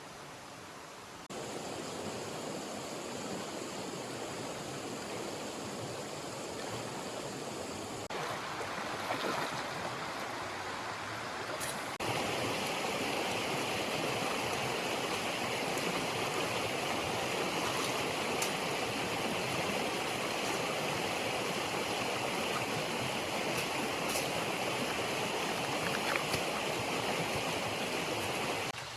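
Running water of a stream, a steady rush that gets suddenly louder about a second in and again about twelve seconds in.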